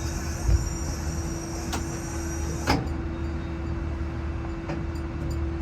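Steady machinery hum inside a tower crane's operator cab, one constant tone over a low rumble, with a low thump about half a second in and two sharp clicks a second apart, then a few faint ticks near the end.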